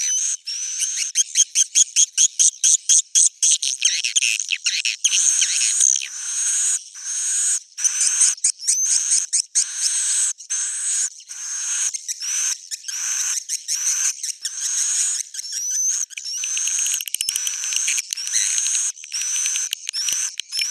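Swiftlet calls: a continuous stream of high chirping twitters, with a fast trill of rapid pulses in the first few seconds. This is the recorded call that swiftlet farmers play to draw birds in to roost.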